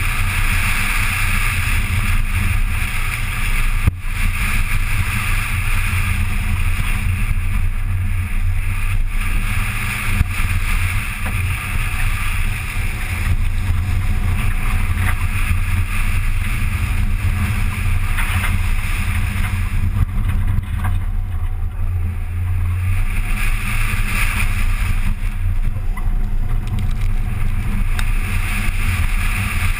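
Acura Integra Type R's 1.8-litre VTEC four-cylinder engine running steadily as the car is driven on a dirt rallycross course, with wind noise on the microphone.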